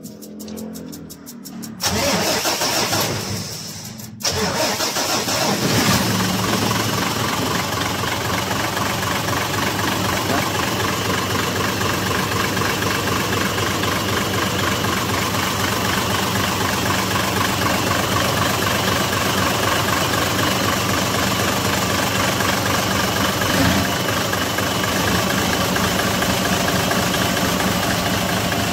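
Mitsubishi Fuso 6M70 inline-six diesel engine being cranked by its starter, catching about four seconds in and then idling steadily, the engine starting readily after its injectors were serviced for hard starting.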